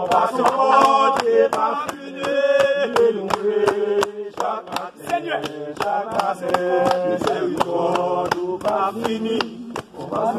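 A group of worshippers singing a chant-like prayer song together, with steady hand clapping about three times a second.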